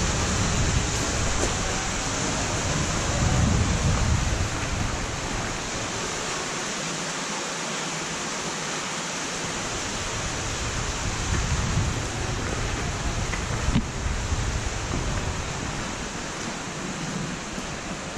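Wind: a steady rushing hiss with gusts buffeting the microphone, strongest in the first few seconds and again about twelve seconds in, and a single knock about fourteen seconds in.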